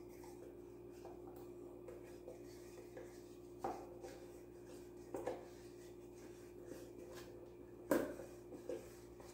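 Quiet handling knocks at the top of a plastic blender jar as a carton of condensed milk is emptied into it: four short knocks, the loudest near the end, over a steady low hum.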